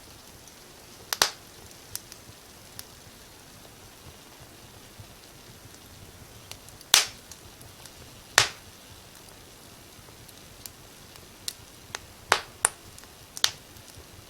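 Wood fire crackling in a fireplace: scattered sharp pops and snaps at irregular intervals, the strongest about a second in, at around seven and eight and a half seconds, and a few close together near the end, over a faint steady hiss.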